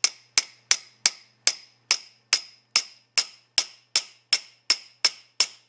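Light, even hammer taps on a steel punch, about two and a half a second, setting the rivet of a new valve in a Carter mechanical fuel pump body; each tap rings briefly with a high metallic note.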